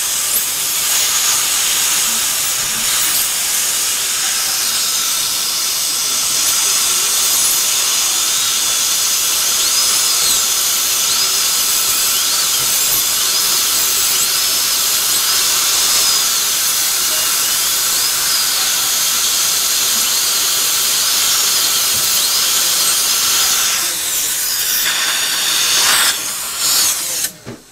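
High-speed dental air-turbine drill cutting through an old dental bridge to section it, a continuous hiss of air and water spray under a high whine whose pitch dips and recovers again and again as the bur bites. It stops near the end.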